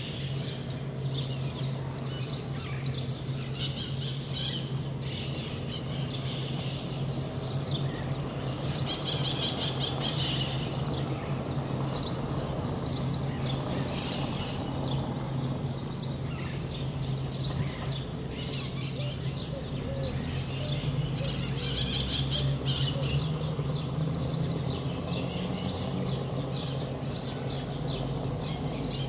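Dawn chorus: many small birds chirping and calling at once, over a steady low hum.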